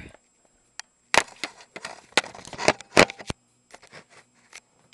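Camera being handled and set down: a run of knocks and scrapes, the three loudest about a second apart, then a few fainter ticks near the end.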